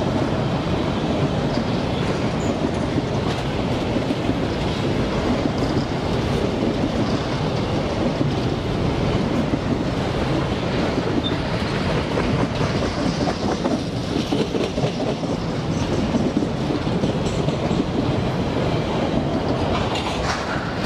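A freight train of covered hopper wagons rolls steadily past with a continuous low rumble. The wheels make a fast clatter over the rail joints.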